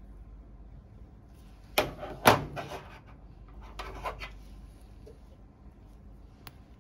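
Metal suturing instruments clicking as they are handled. Two sharp clicks about two seconds in are the loudest, with a few softer clicks and rustles around four seconds and a single light tick near the end.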